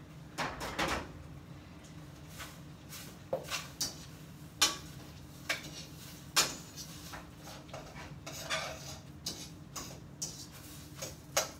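Metal kitchen utensils clinking and knocking against a cooking pot: irregular clatter with a few sharper knocks, over a steady low hum.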